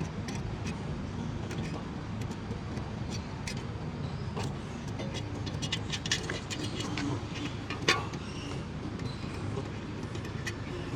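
Steady low vehicle-like rumble with scattered light metal clicks and clinks of hand work, and one sharper clink about eight seconds in.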